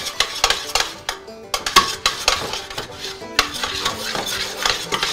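Wire whisk clinking and scraping against a stainless steel saucepan as butter is whisked into a cream sauce, with quick, irregular clinks several times a second.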